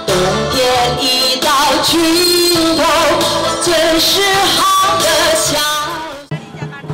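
Woman singing a pop song into a microphone over a backing track with a steady bass line, heard through stage loudspeakers; the music fades out shortly before the end.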